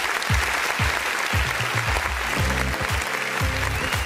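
Applause over background music with a deep, repeated bass beat.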